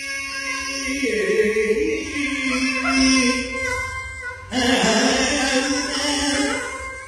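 Carnatic classical male vocal singing, long held and ornamented notes with violin accompaniment. A short break comes about four and a half seconds in before a new phrase starts.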